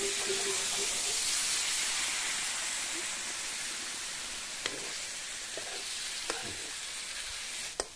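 Masala water poured into hot oil and spiced wild potatoes in a steel kadhai, sizzling loudly and gradually dying down. A steel ladle stirs the pan, with a few light clinks in the second half.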